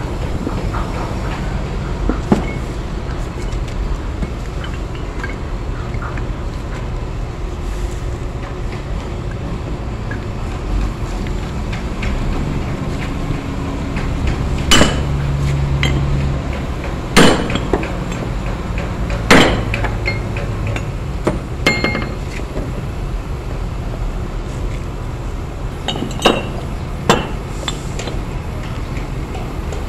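Heavy steel Kenter shackle parts and anchor-chain links clinking and knocking together as the shackle is fitted into a link, with a handful of sharp metal knocks, the loudest about halfway through and two more near the end, over a steady low rumble.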